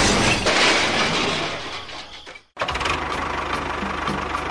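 A toy tractor and toy train collision, heard as a crash sound effect with breaking and clattering noise that dies away over about two seconds and cuts off suddenly. An engine then starts running steadily.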